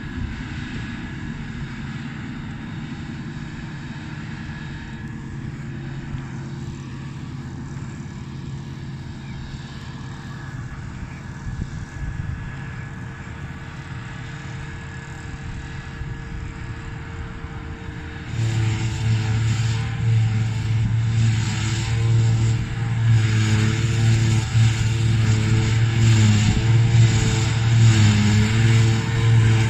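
Claas self-propelled forage harvester picking up and chopping a grass swath, its engine and chopper running with a steady drone, along with the tractor hauling the silage trailer beside it. The drone gets markedly louder about two-thirds of the way through as the machines come closer.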